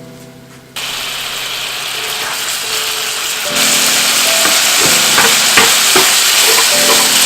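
Ingredients sizzling in hot oil in a frying pan. The sizzle starts suddenly about a second in and grows louder about halfway through, with the clicks of a utensil stirring them near the end.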